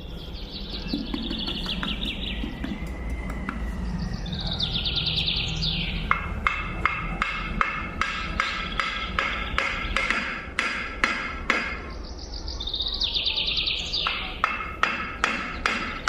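Background music with birdsong chirps every few seconds, each burst falling in pitch, over a run of sharp woody taps at about two a second.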